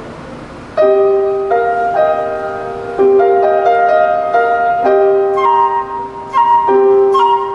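Live classical music for solo flute and piano: piano notes struck in a steady pulse, with a higher melody line entering in the second half.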